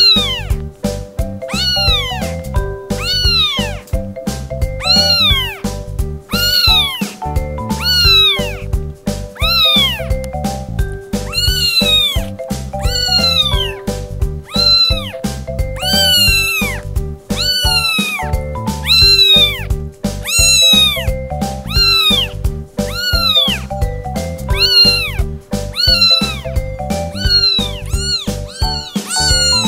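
A 13-day-old kitten mewing over and over, high thin calls about one a second, each rising then falling in pitch. Background music plays underneath.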